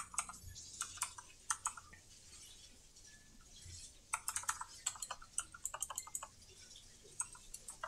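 Typing on a computer keyboard: runs of quick keystrokes, a pause of about two seconds midway, then a dense flurry of keys.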